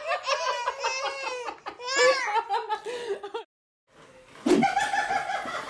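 Babies laughing in high-pitched belly laughs and giggles for about three and a half seconds. After a brief cut to silence, a single knock and steady held tones begin near the end.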